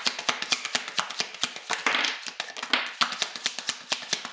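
A deck of Lenormand cards being shuffled by hand: a rapid, continuous run of papery clicks and flicks, many a second.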